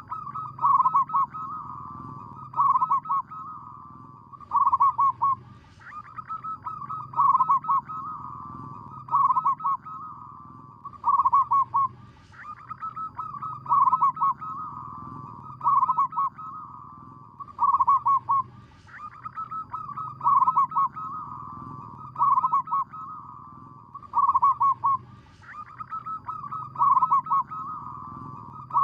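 Zebra dove (perkutut) singing its cooing song. The phrase repeats about every six and a half seconds, each a short quick run of notes followed by several louder staccato coos.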